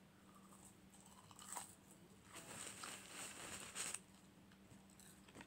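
Close-up chewing of a mouthful of McDonald's fast food, with soft crunching mouth sounds that grow louder in the middle and stop about four seconds in. A faint steady low hum runs underneath.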